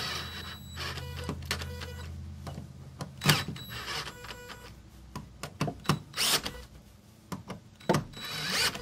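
DeWalt cordless drill with a 5/16-inch nut driver driving anchor screws through a pipe flange into brick. The motor runs steadily for about three seconds, then goes in short stop-start runs with sharp clicks and bouts of rapid clicking as the screws stop turning: the drill does not have the torque to drive them fully home.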